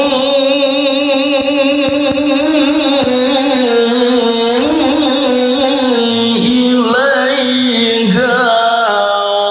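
A man's melodic Quran recitation (tilawah), amplified through a handheld microphone: one long unbroken phrase on a single breath, the note held with a slight waver and stepping down a few times in small ornamented turns.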